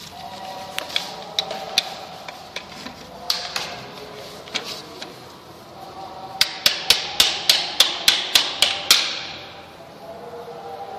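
Plastic housing of a Canon imageRUNNER drum unit being handled and knocked: scattered clicks and knocks, then, a little past halfway, a fast run of sharp knocks, about four or five a second, lasting some three seconds.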